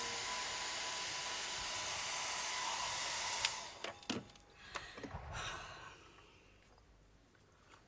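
Hand-held hair dryer blowing steadily, switched off about three and a half seconds in, followed by a few light knocks and handling sounds.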